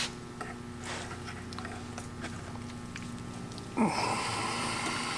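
Water pouring and dripping off an iron artillery shell as it is lifted out of an electrolysis bath, starting suddenly about four seconds in and running on for over a second, after faint clicks and a low steady hum.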